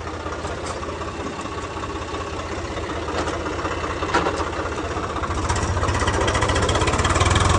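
Swaraj 855 tractor's three-cylinder diesel engine idling with a steady low throb and a couple of light knocks, then picking up revs and getting louder about five seconds in.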